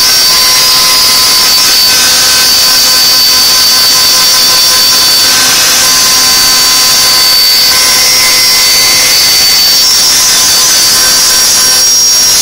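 CNC router spindle running at high speed while cutting: a loud, steady high whine with several held tones over a hiss.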